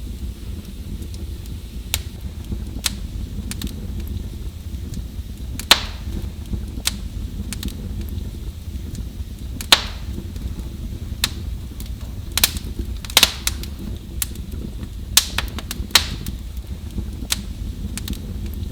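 Wood fire crackling in a fireplace: irregular sharp pops and snaps over a steady low rumble of the burning. The loudest pops come about six and ten seconds in, with a quick run of them later on.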